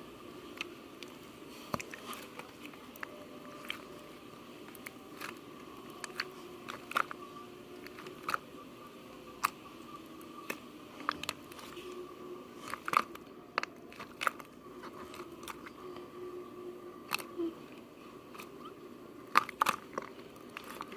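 Irregular sharp crunchy clicks and crackles, a few every couple of seconds, over a faint steady hum. The loudest cluster comes near the end.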